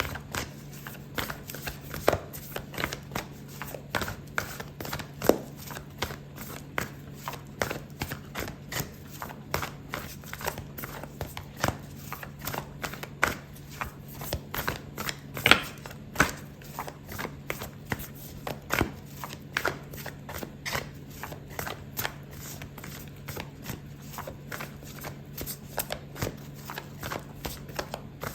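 A deck of oracle cards being shuffled by hand: a long run of quick, irregular card clicks and flicks, over a low steady hum.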